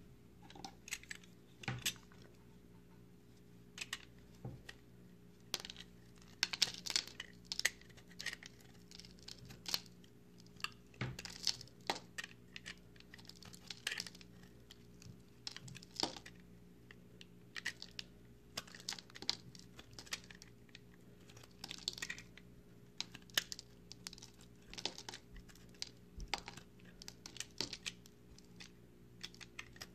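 Snap-off utility knife blade cutting and shaving a dry, crumbly recycled soap bar, giving irregular crisp crunches and scraping crackles as pieces break away. A faint steady hum runs underneath.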